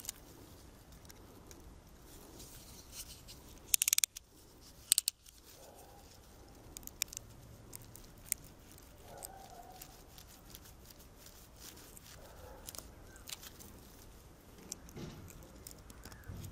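Snap-off utility knife blade shaving and scraping the wood of a young mulberry trunk in short strokes and clicks, paring smooth a ragged cut left by secateurs. The loudest scrapes come in two quick clusters about four and five seconds in.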